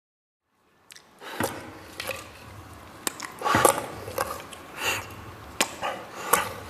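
Ping-pong balls being pushed into a mouth already stuffed with them: irregular sharp clicks as the balls knock against each other and the teeth, with wet mouth squelches between, starting about a second and a half in.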